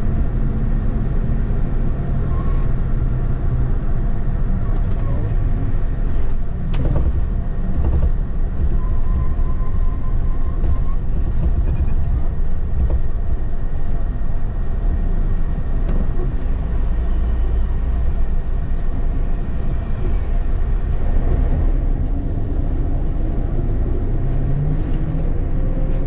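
Bus driving over a rough, unpaved rocky road, heard from inside the cabin: a steady low engine and road rumble, with a couple of sharp knocks about seven seconds in.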